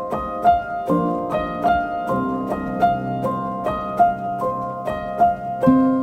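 Instrumental background music: a steady run of bright single notes, about two to three a second, over held lower chords that change a few times.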